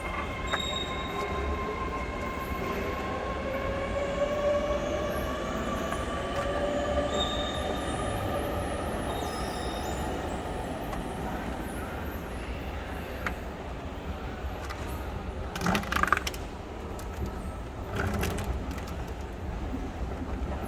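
Train running at the station: long whining tones that slowly shift in pitch over a steady low rumble. Sharp knocks come about sixteen and eighteen seconds in.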